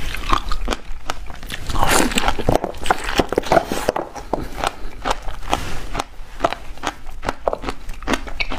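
Chewing a mouthful of frozen pomegranate arils: rapid, crackling crunches of icy seeds, densest a couple of seconds in, then thinning to scattered crunches.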